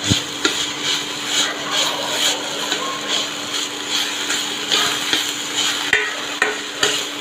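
Steel spatula stirring and scraping chopped onions and green chillies frying in oil in a kadai: a sizzle broken by repeated scraping strokes, a few a second, with a steady low hum underneath.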